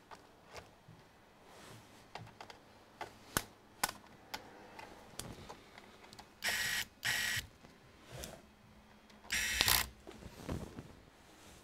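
Small powered screwdriver whirring in three short bursts, the last the longest and loudest, among light clicks of handling on a laptop's plastic base.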